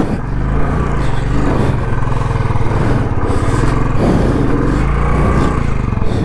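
Royal Enfield Bullet's single-cylinder engine running under throttle over rough stony ground, its revs rising and falling.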